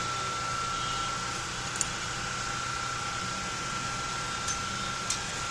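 Steady background hiss with a faint, thin, high-pitched hum, broken by a few light metal clicks from spanners on the motorcycle's rear axle and brake nuts.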